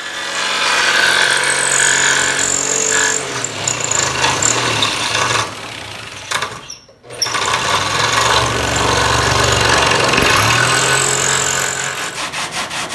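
Electric jigsaw cutting through a fiberglass car hood, running steadily, stopping briefly about seven seconds in and then starting again. Near the end it gives way to rhythmic strokes of a hand sanding block on the cut edge, about three a second.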